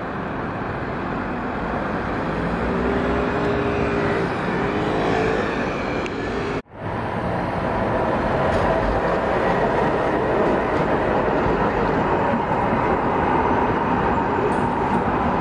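Street traffic with a car driving past. The sound cuts out briefly about halfway, then a tram runs along its rails close by with a steady whine.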